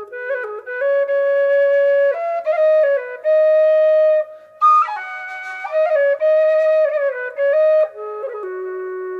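Solo flute music: a slow melody of held notes stepping up and down, with a brief pause about four and a half seconds in.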